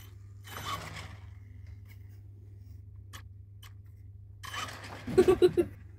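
Traxxas E-Revo RC monster truck driving in short bursts across wooden decking, its electric drive whirring and its tyres rattling over the boards. A brief burst comes about a second in, and a louder one near the end with rapid pulsing, about seven a second.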